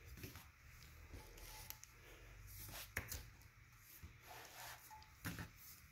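Near silence with faint handling noises as a small steel air tank is picked up and turned by hand: a few light knocks, the clearest about three seconds in and another just after five seconds.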